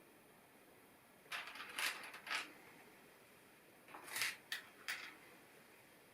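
Small plastic LEGO pieces being handled: two short bursts of clicking and rattling, the first about a second in and the second about four seconds in.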